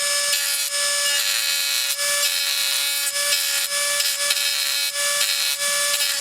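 Dremel rotary tool running at a steady high speed, its bit grinding into a die-cast toy car's rivet with a scraping rasp over the motor's whine.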